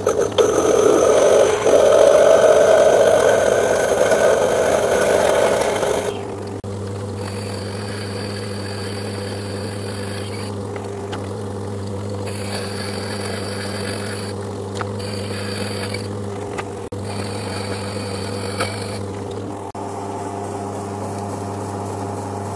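Myford metalworking lathe running as a 14 mm slot drill cuts into the spinning coupler, a loud grinding cut for about six seconds that stops abruptly. The lathe then runs on with a steady hum while lighter boring cuts come and go in several short passes.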